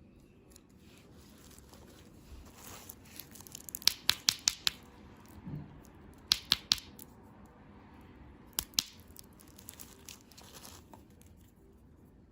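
Candy packaging being handled and torn open: soft crinkling and rustling, broken by three quick clusters of sharp clicks and snaps.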